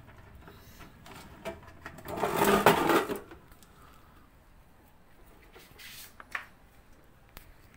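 A burst of clattering, scraping noise lasting about a second, from about two seconds in, with a few faint clicks later.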